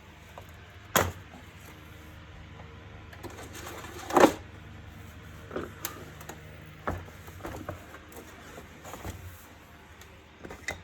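Plastic vacuum-cleaner housing parts being handled and fitted together: a sharp knock about a second in, a louder, longer clatter about four seconds in, then several light clicks and taps, over a steady low hum.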